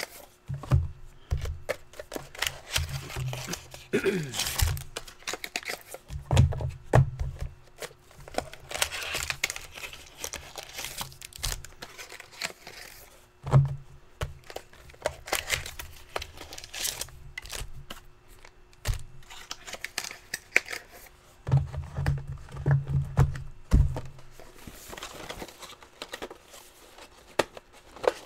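Plastic wrapping on trading card boxes crinkling and tearing, with scattered clicks and several clusters of dull thumps as the boxes are handled.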